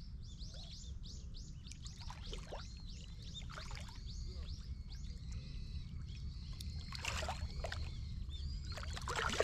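A small bird chirping in quick repeated high notes over a low wind rumble, then water splashing twice at the surface as a large fish swirls and thrashes near the line, the second splash the loudest.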